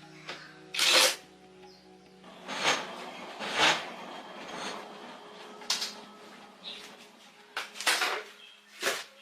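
About eight short, sharp handling noises at irregular intervals, the loudest about a second in, over faint steady background music.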